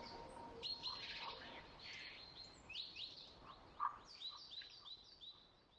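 Faint bird chirps: runs of short, high chirps, several a second, broken by short pauses.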